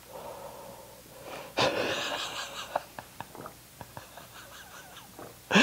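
A person's sudden, loud breathy blast, like a snort or sharp exhale, about one and a half seconds in, fading within a second, followed by faint breathing and small clicks.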